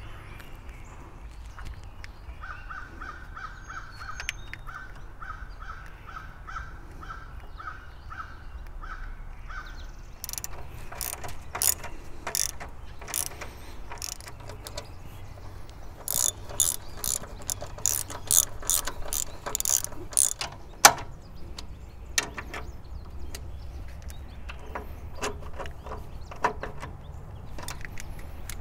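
Hand ratchet wrench clicking in short bursts as bolts are run in and tightened, starting about ten seconds in, with the loudest clicks about two-thirds of the way through.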